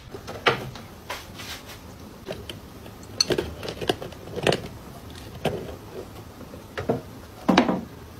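Irregular light knocks and clicks, about a dozen spread over several seconds, the loudest near the end.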